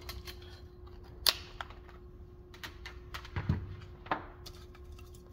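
Scattered light clicks and taps of plastic and wire as a computer fan and its leads are handled, a few of them louder, over a faint steady hum.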